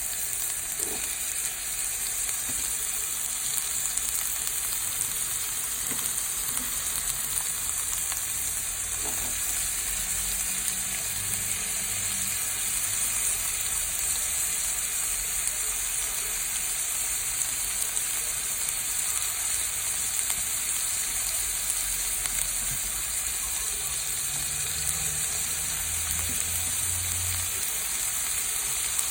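Vegetables sizzling steadily as they are stir-fried in a hot pan, with a few light knocks now and then.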